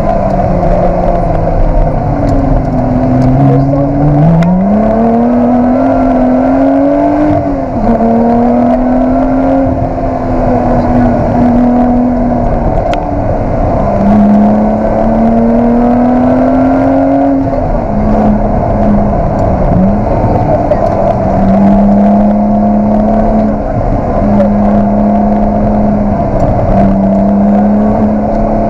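Lotus Exige 360 Cup's supercharged 3.5-litre V6 heard from inside the cabin at rally-stage pace, its pitch climbing under throttle and dropping sharply several times as the driver lifts or shifts.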